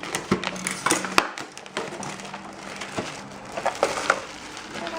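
Packaging being opened by hand: crinkling and rustling broken by many short, sharp clicks and taps.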